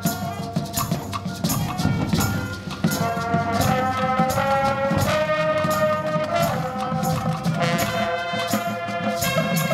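High school marching band playing live: brass chords held and changing every second or two over drum and front-ensemble percussion hits.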